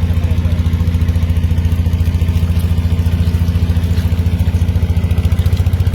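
A small engine running steadily with a rapid, even beat of about fourteen pulses a second.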